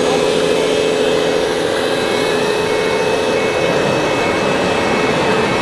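Steady whine of a 1/14-scale RC model machine's motor and drive, one strong tone that barely shifts in pitch over a continuous hiss.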